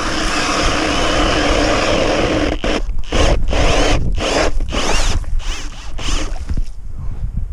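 Drill turning an ice auger as it bores a test hole through lake ice. It runs steadily for about two and a half seconds, then in a series of short start-stop bursts.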